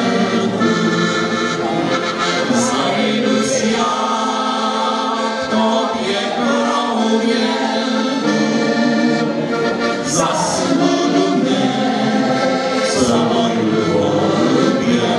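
Two button accordions playing a folk tune while men sing along in harmony.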